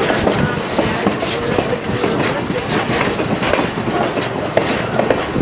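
Railroad passenger coach rolling along the track: a steady rumble of wheels on rail, with irregular clicks and clacks as the wheels pass over rail joints.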